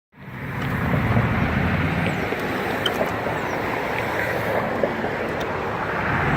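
Steady road traffic noise from a highway, mixed with wind on the microphone, cutting in abruptly out of silence.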